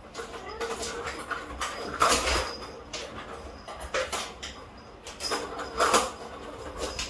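Plastic balls rolling and clattering in the tracks of a three-tier cat ball-track toy as kittens bat at them. There are sharp knocks about two seconds in and again near the end.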